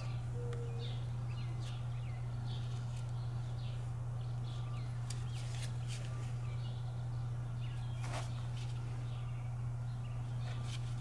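Birds chirping now and then over a steady low hum, with a few faint clicks.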